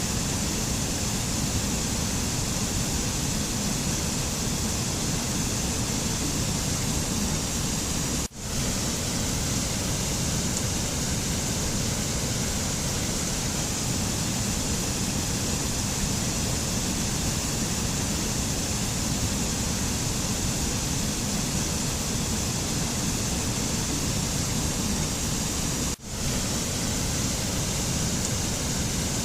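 Steady, even rushing noise of a relaxation soundscape, like a waterfall or constant rushing water, with no tune or voice. It dips out sharply for an instant twice, about eight seconds in and again near the end.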